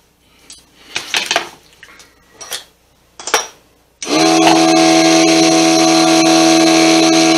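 A few knocks and rustles of handling, then about four seconds in the Sanjiang mini lathe's small motor is switched on and runs at a steady speed with a constant whine.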